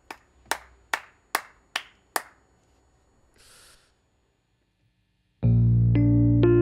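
A man clapping his hands in a steady beat, six sharp claps at about two and a half a second. After a short pause, a keyboard comes in near the end with loud sustained chords.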